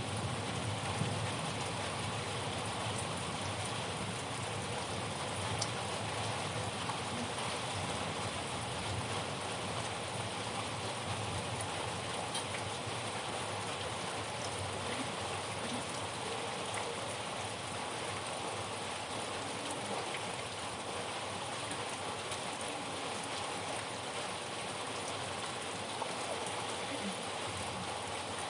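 Steady rain: an even, dense patter of falling rain with no let-up.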